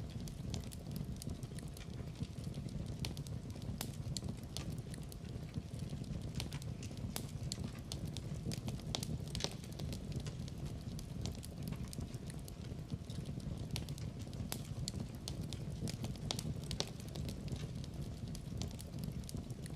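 Wood fire burning in a fireplace: a steady low rumble of the flames with many sharp, irregular crackles and pops.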